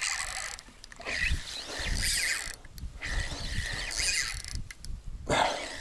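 Spinning reel being cranked in several short bursts separated by pauses, its gears whirring as the line is wound in: a stop-and-go jig retrieve.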